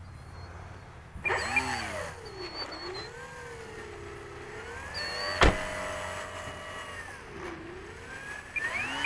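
Electric motor and propeller of an E-flite Carbon-Z Cessna RC plane whining, its pitch rising and falling as the throttle is worked, then climbing near the end for a short, half-throttle takeoff. A single sharp click about five and a half seconds in.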